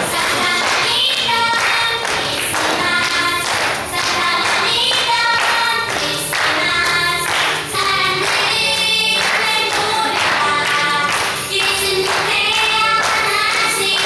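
A group of women and children singing a praise song together over musical accompaniment with a steady beat.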